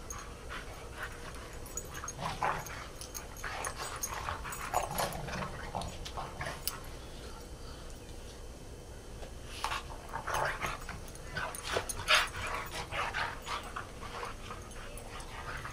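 Dogs playing rough together, making short vocal sounds in bursts, with a lull of a couple of seconds in the middle and the busiest stretch after it.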